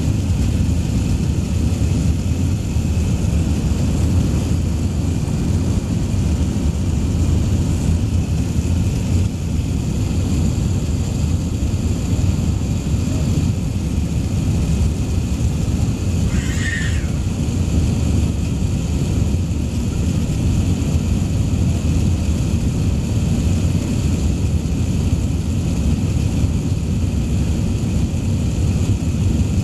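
Steady low roar of an Airbus A380's engines and rushing air, heard inside the passenger cabin during the climb after takeoff. A brief high-pitched squeak cuts through about seventeen seconds in.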